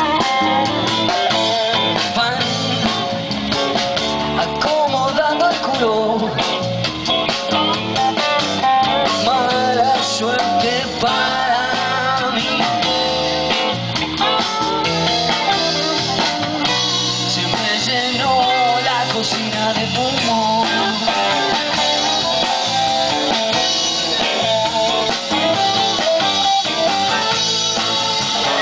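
A live rock band playing through a PA system, with electric guitars and drums.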